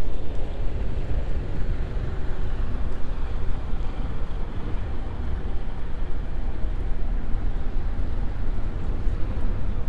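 Wind buffeting a GoPro's microphone while cycling: a dense, unsteady low rumble with a hiss over it and no clear tones.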